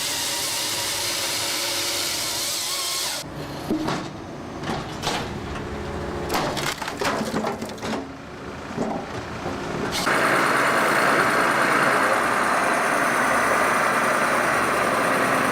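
Wood-processing machinery at work: a steady loud noise, then a quieter stretch of irregular knocks and cracks of wood, then a steady, hissing machine noise again from about ten seconds in.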